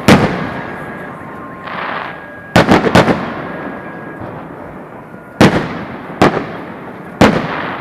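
Aerial firework shells bursting in a string of sharp booms, about seven in all: several in quick succession near the three-second mark and more later. Each boom trails off in a long echo, and there is a brief hiss between the first bursts.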